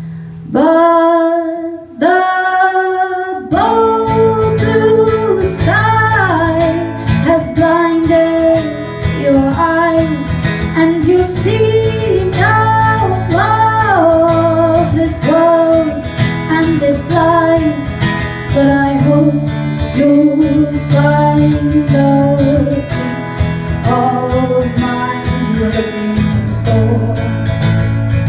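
A woman singing, first alone on two long held notes, then with a strummed acoustic guitar coming in about three seconds in and carrying on under her voice.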